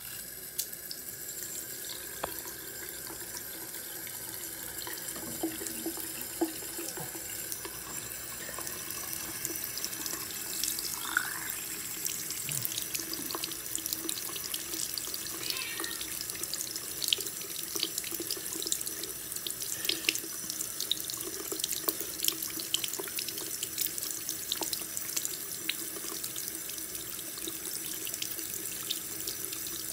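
Bathroom faucet turned on and running steadily into a sink, the stream splashing over a small dog figurine held under it and draining into the basin.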